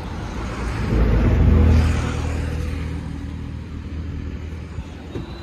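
Motor vehicle passing on the road: engine rumble swelling about a second in, then fading away over the next few seconds.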